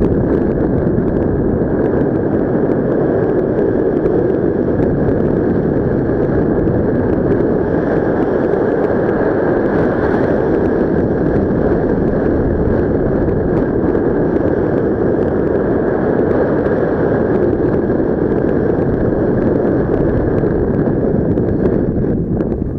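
Wind noise on the microphone from a paraglider's airflow in flight: a loud, steady rush with no letup.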